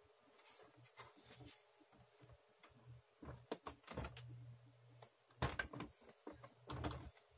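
Faint scattered knocks, clicks and rubbing from hands handling hardware, loudest twice between about three and four seconds in and again twice later, over a faint steady low hum.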